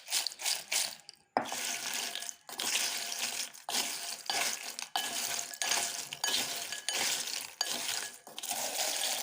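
Crisp fried rice-flour chips being tossed in a bowl to coat them in masala, rattling and rustling in repeated tosses about once a second.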